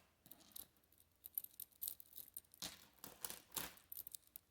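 Faint clinks and light rattles of costume jewelry handled by hand, a string of small scattered clicks with two slightly longer, louder rustling clatters past the middle.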